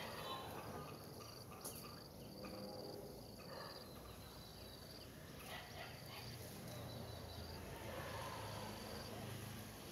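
Faint, high-pitched insect chirping: short trills repeating about once a second, over a low steady background rumble.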